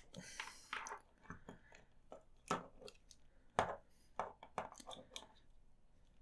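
Plastic S.H. Figuarts action figure being handled, its parts knocking and clicking as it is turned and posed: about a dozen light, irregular clicks, with a short rustle near the start.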